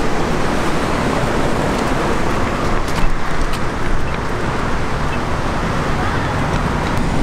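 Steady road traffic noise from cars passing on a busy street, with a few brief clicks about three seconds in.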